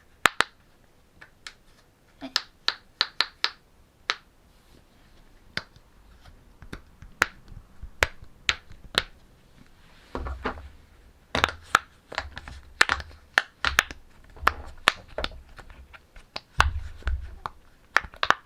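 Silicone pop-it fidget toy bubbles being pressed, giving sharp single pops at irregular spacing, sometimes several in quick succession. A low rumble of the toy being handled joins in about halfway through and again near the end.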